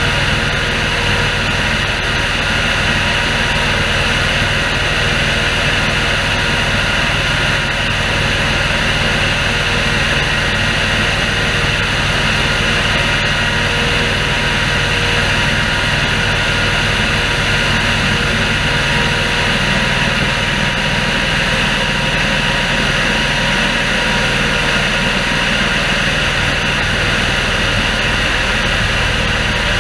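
Air-blast orchard sprayer running steadily, its big fan blowing oil spray into the apple trees, with the tractor engine running underneath. The sound is a continuous, even rush with a few steady tones in it.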